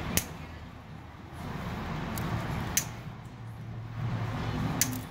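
Three short, sharp plastic clicks about two seconds apart as a nylon zip tie is handled around the spark plug wires, over a steady low hum.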